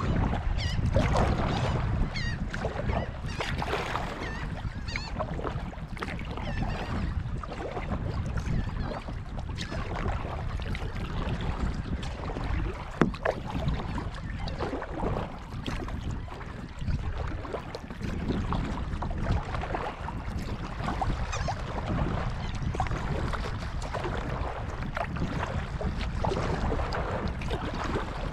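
Water splashing from kayak paddle strokes, over a steady low wind rumble on the microphone, with one sharp knock about halfway through.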